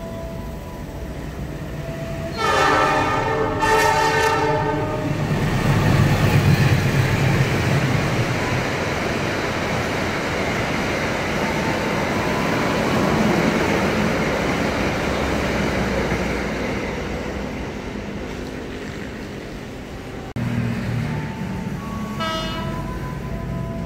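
Locomotive horn of a long-distance passenger train sounding in two blasts. The train then passes through the station at speed, wheels rumbling on the rails, and the sound slowly fades. After a break, another train horn sounds briefly near the end.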